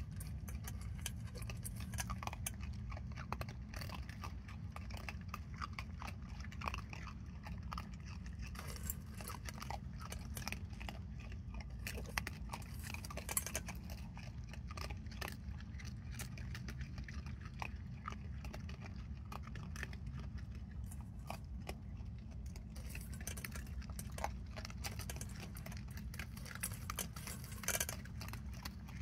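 Raccoons chewing and crunching dry cat food kibble from a stainless steel bowl: a dense, irregular stream of small crisp crunches and clicks over a steady low hum.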